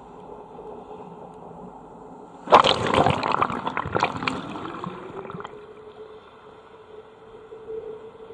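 A sudden rush of seawater about two and a half seconds in, hissing and crackling for about three seconds as a wave washes up over the microphone, over steady surf. A faint hum then rises in pitch and holds steady.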